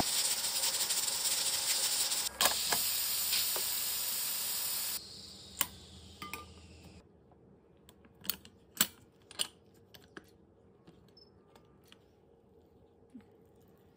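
Steam hissing out of a cast-iron pressure rice pot as its weight valve is opened to vent the pressure during the resting stage after cooking. The hiss is steady for about five seconds, then drops and fades out, and is followed by a few sharp clicks and knocks.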